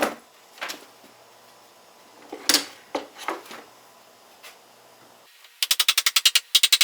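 Wooden shelf board knocked into place against the wall several times. Then a power screwdriver starts driving a screw to fix it, making a fast, even run of sharp clicks about a dozen a second.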